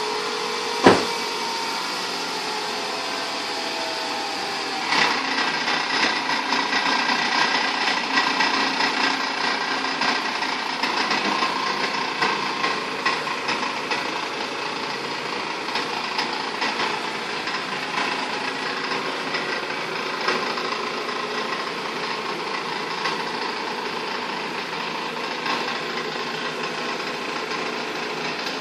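A small motor running steadily, with a sharp click about a second in and louder running starting about five seconds in.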